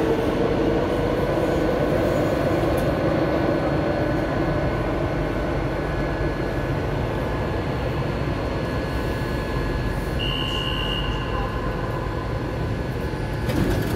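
Metro train on the opposite platform track pulling out of an underground station: motor hum and wheel rumble fade away over the first few seconds, leaving the steady hum of a train standing with open doors. A single brief high beep sounds about ten seconds in.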